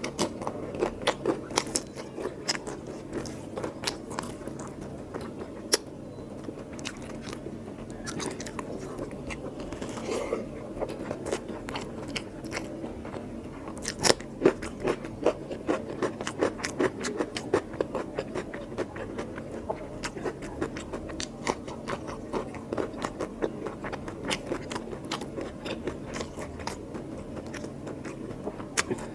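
Close-miked eating of mutton curry with rice: continuous wet chewing, biting and mouth smacks made up of many irregular sharp clicks, with a few louder snaps about halfway through.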